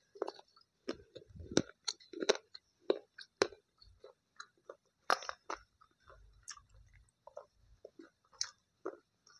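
A person chewing and crunching slate pencil pieces in her mouth: irregular sharp crunches, about one or two a second, between softer chewing.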